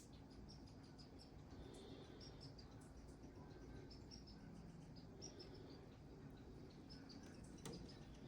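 Faint birds chirping outside, short high chirps in quick runs every second or so over quiet room tone, with a single click near the end.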